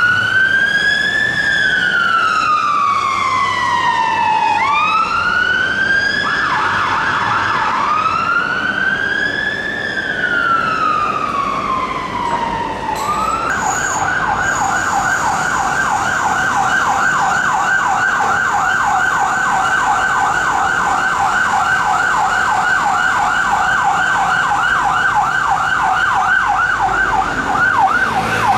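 Emergency vehicle siren sounding a slow wail, rising and falling about every four to five seconds, then switching about halfway through to a rapid yelp that runs on steadily.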